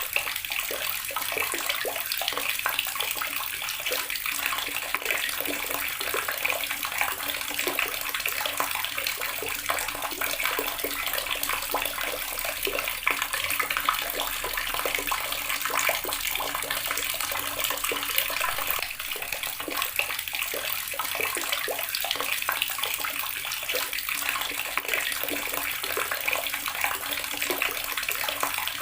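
Water tap running steadily, its stream splashing continuously into a basin or tub below.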